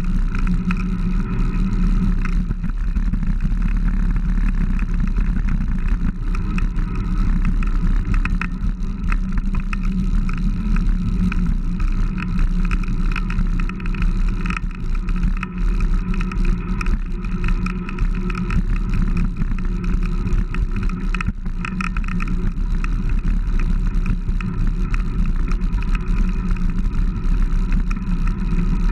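Steady wind rumble and road noise on a handlebar-mounted camera on a moving bicycle.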